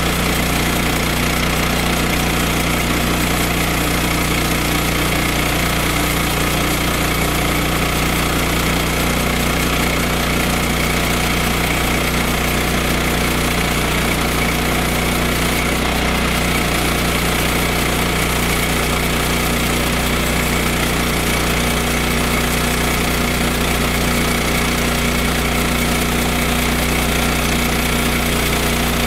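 Small gasoline engine of a Woodland Mills HM122 portable band sawmill running steadily at idle, being warmed up before cutting.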